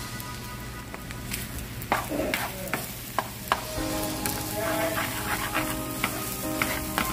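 Wooden spatula stirring and tossing rice in a stainless steel frying pan, scraping and knocking against the pan from about a second in, while the rice sizzles lightly in the hot oil.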